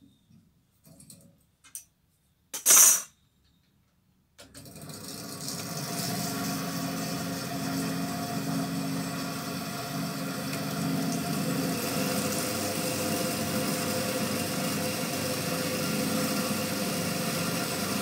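A few small handling clicks and a short, loud burst of noise about three seconds in, then a ceiling-fan winding machine starts about four and a half seconds in, builds up over a second or so and runs steadily with a whirring hum, winding wire onto the fan stator.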